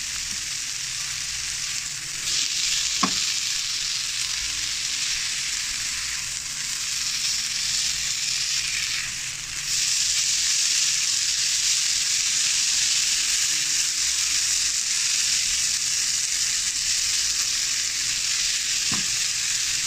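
Chopped mustard greens sizzling in oil in a nonstick wok while being stirred with a spatula, the last of their water frying off. The sizzle gets louder about ten seconds in, and there is one light spatula tap about three seconds in.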